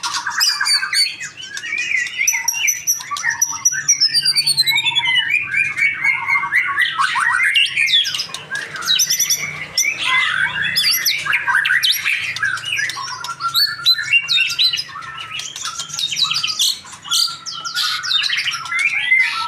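Young male white-rumped shama singing continuously: a rapid, varied run of whistles, chirps, trills and harsher notes, with a long falling whistle about four seconds in.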